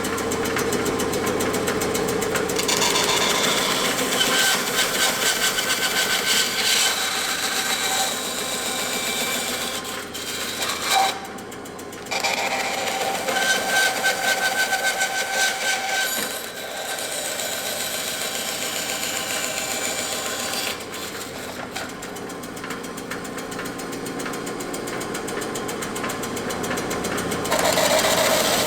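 Bandsaw running and cutting through a PVC pipe glued to a plywood base. The sound eases off briefly about eleven seconds in, then picks up again.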